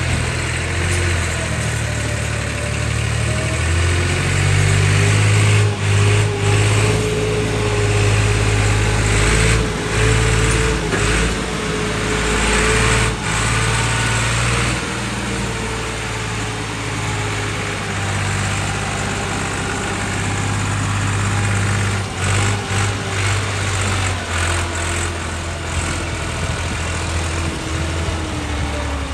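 Diesel farm tractor engine working under load as it pulls a brick-loaded trolley through mud. It runs steadily, builds up about four seconds in and stays louder for about ten seconds, then eases to a steadier pull. Occasional knocks are heard toward the end.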